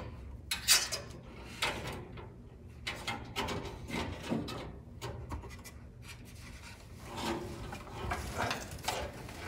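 Bundled car wiring harness rustling and scraping as it is pulled and fed through the back of a metal dashboard, with scattered small clicks and knocks. A sharper knock comes a little under a second in.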